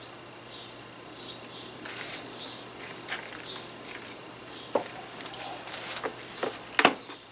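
Wooden beehive frames and box being handled: scraping and light knocks as a comb frame is lifted out and set aside. Then a metal hive tool clicks sharply against the wooden frames near the end, the loudest sounds.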